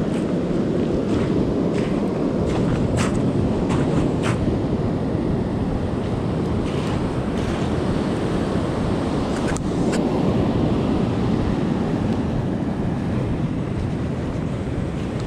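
Ocean surf washing onto a sand and pebble beach, mixed with wind buffeting the microphone: a steady low rushing. A few short clicks come about three to four seconds in and again near ten seconds.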